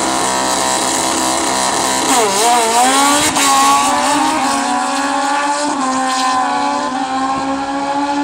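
Two drag-racing motorcycles' engines held at steady revs on the start line, then launching about two seconds in. The pitch dips and then climbs as they accelerate away down the strip.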